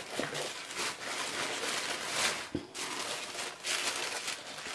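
Tissue paper rustling and crinkling in irregular swells as hands pull it back and fold it aside.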